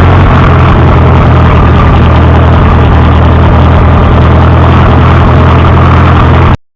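Tractor engine running steadily and loud, freshly started on a little choke.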